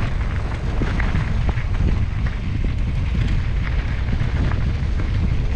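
Wind buffeting the microphone during a ride on a rough dirt road: a steady low rumble with scattered clicks and rattles.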